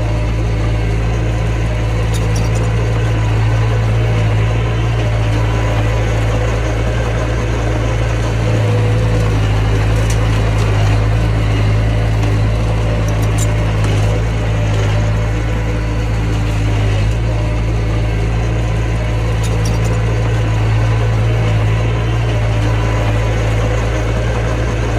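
Mini bulldozer's diesel engine running steadily with a constant low drone, with a few faint clicks over it.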